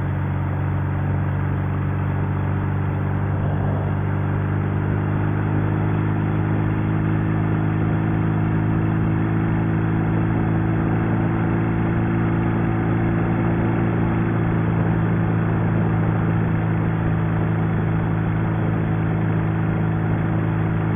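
650cc flat-twin engine of a sidecar motorcycle, a copy of the WWII German BMW sidecar, running steadily under way on the highway. Its note creeps slowly up in pitch and grows a little louder as the bike gathers speed, over wind and road rush.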